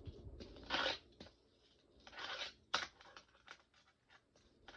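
Fingerboard rolling and scraping across plastic skatepark ramps in two short passes, then a sharp clack of the board against the ramp and a few lighter clicks.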